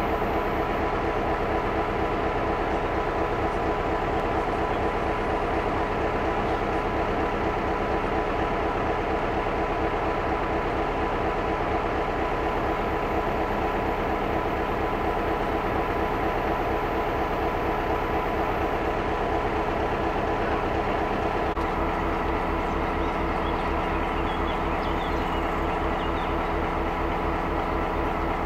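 SŽ 664 diesel-electric locomotive's engine running steadily with a low, even throb. Its tone shifts slightly about two-thirds of the way through.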